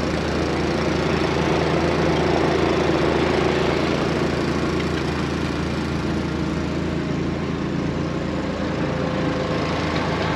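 Engine idling steadily, an even running sound with no change in speed.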